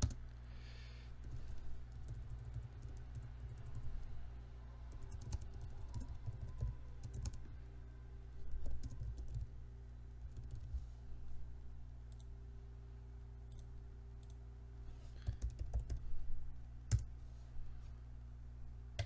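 Computer keyboard keys tapped and mouse buttons clicked in scattered clusters as commands are typed and dialogs clicked through, over a steady low hum.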